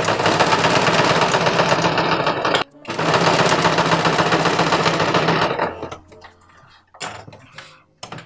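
Electric sewing machine running fast as it stitches a seam, in two runs with a short stop about two and a half seconds in. It stops about five and a half seconds in, and a few light clicks follow.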